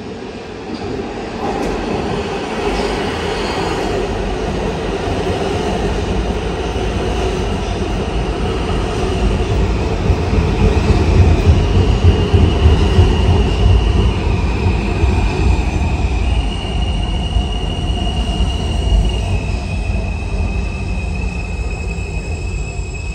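Kawasaki R160 subway train running past the platform. Its heavy rumble grows louder toward the middle, with wheel noise on the rails and a high electric whine from the propulsion that shifts pitch in steps every few seconds.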